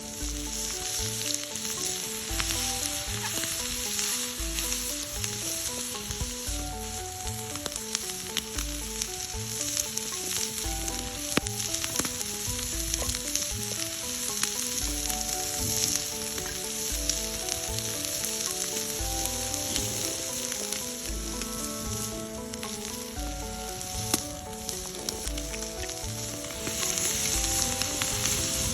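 Food sizzling in a pan, under background music with a steady beat and a simple melody.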